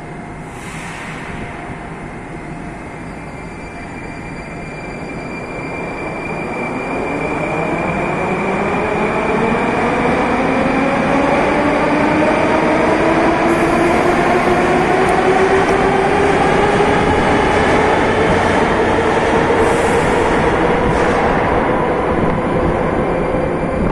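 Moscow Metro train pulling away from the platform: its motor whine rises steadily in pitch as it speeds up, over wheel and rail rumble, growing louder for several seconds and then holding.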